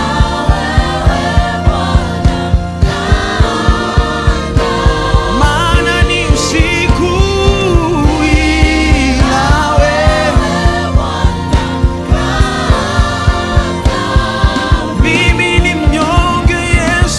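Gospel worship band music: sung vocals over a steady drum beat, bass and keyboard.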